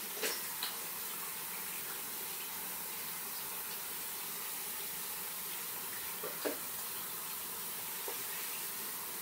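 A water tap running steadily as sticky hands are rinsed under it, with a few small knocks in the first second and again about six seconds in.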